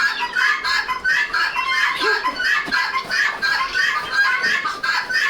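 Chickens clucking in a steady, rapid run of short calls, about three to four a second.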